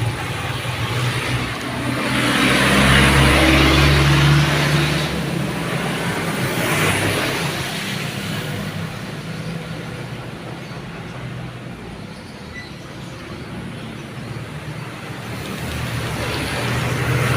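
Road traffic: a vehicle passes about two to five seconds in, its engine rumble and tyre noise rising and falling away. A shorter pass follows near seven seconds, and another vehicle approaches near the end.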